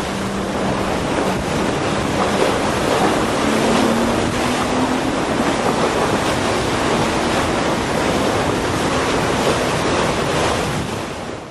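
Wind buffeting the microphone over the wash of waves on open water, with a faint steady low hum underneath. It fades out near the end.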